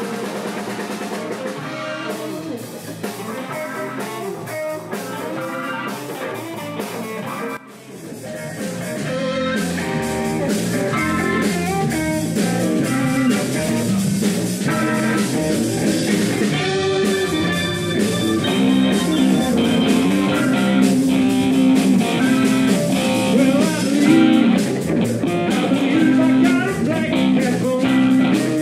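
Live blues band playing, electric guitar to the fore over drums and keyboard. About seven and a half seconds in the sound briefly dips, then the band comes back fuller and louder with the bass.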